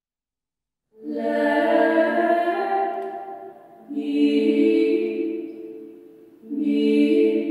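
Six-voice female ensemble singing a cappella in close harmony: after about a second of silence, three held chords, each coming in together and then fading away, about two and a half to three seconds apart.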